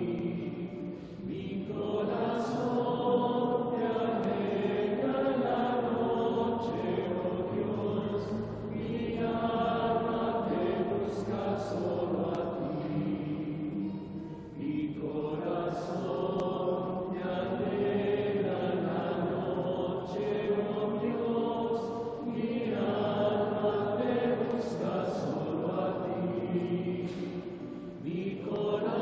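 A congregation singing a Taizé chant: a short sung refrain repeated over and over, each phrase lasting about six to seven seconds with a brief breath between repeats.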